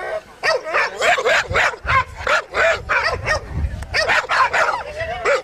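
Dogs barking rapidly and continuously, about three barks a second.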